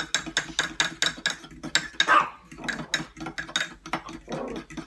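Spoon stirring mug-cake batter in a mug, clinking against its sides in a quick, regular rhythm of about four to five strokes a second.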